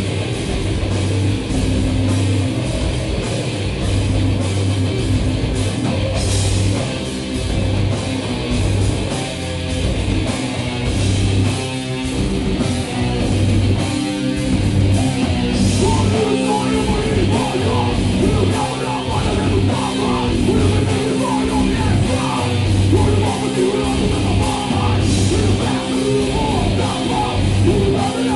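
Hardcore-metal band playing live at full volume: distorted electric guitars, bass and drum kit, with a few cymbal crashes.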